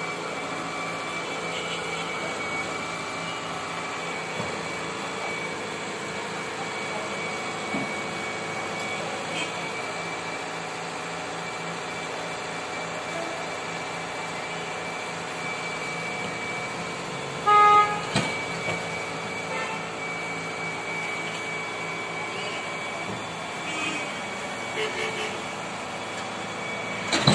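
Hitachi EX120 excavator's diesel engine running steadily as the machine crawls up onto a flatbed trailer. A short horn toot sounds once, a little past halfway.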